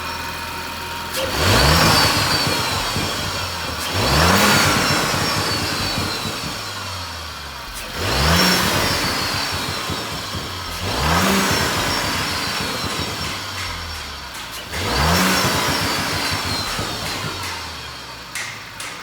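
The 3.0 TFSI turbocharged V6 of a B9 Audi S4 being revved five times in quick blips, each rising sharply in pitch and then falling back, with a falling whoosh after each rev.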